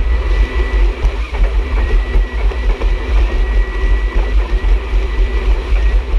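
Personal watercraft (jet ski) engine running at speed, with a steady high whine over heavy uneven wind rumble on the microphone.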